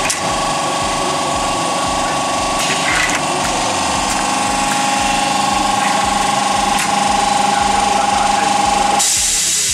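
Motorised prop mechanism running with a steady, rapid buzzing rattle after being switched on by a push button; near the end it cuts off and a hiss takes over.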